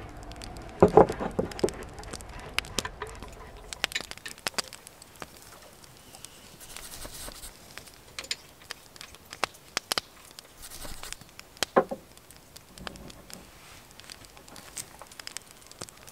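Scattered light clicks and taps of small objects being handled, with a few louder knocks about a second in and again near the end.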